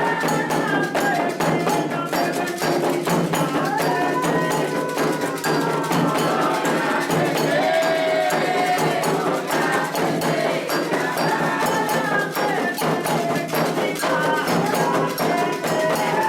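Candomblé toque for Iansã: atabaque hand drums and a struck agogô bell play a fast, steady rhythm, with voices singing a chant over them.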